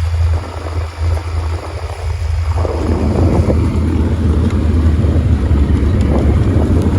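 A vehicle engine running steadily with a low hum. Wind buffets the microphone and grows louder about three seconds in.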